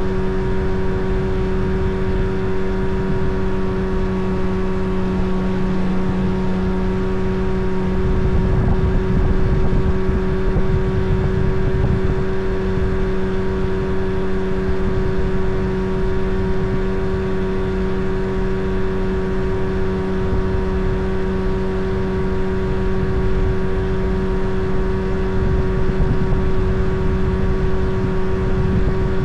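Motorboat engine running at a steady cruising speed, a constant pitched drone over a low rushing noise.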